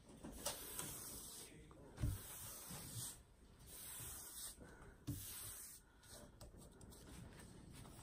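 Hands rubbing and sweeping across a large diamond painting canvas under its plastic cover film, smoothing it flat in several strokes, with a few soft thumps against the table.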